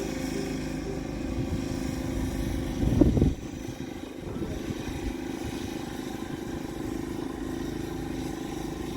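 An engine running steadily, swelling louder about three seconds in and then settling back.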